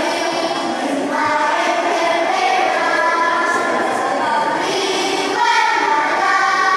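A group of children singing a masamper song together, several voices in held notes that shift in pitch every second or so.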